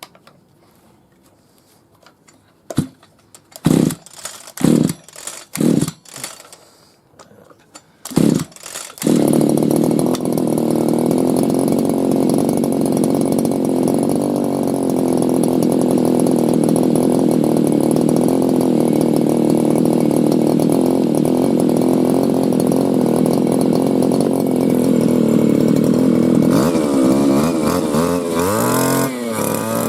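Petrol whipper snipper (string trimmer) engine being pull-started. It fires in short bursts about once a second, catches about nine seconds in and runs steadily, then is revved up and down near the end. It runs now that the split breather hose has been replaced and a disconnected wire reconnected.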